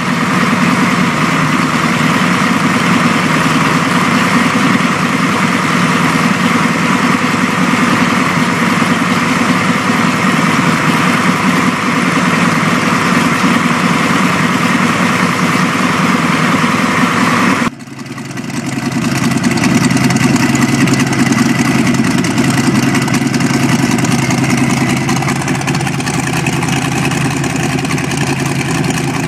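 Boostpower twin-supercharged EFI marine engine idling steadily on the trailer. It breaks off abruptly about eighteen seconds in and picks up again with a changed tone as the exhaust outlets at the stern come to the fore, blowing out smoke and vapour.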